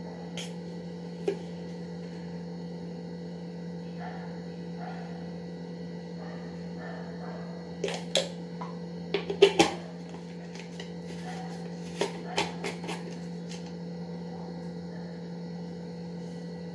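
Spoon clinking and tapping against a stainless steel mixing bowl while cocoa powder is added to flour: a single click early on, then a quick run of sharp clinks about eight to ten seconds in and a few more around twelve seconds, over a steady low hum.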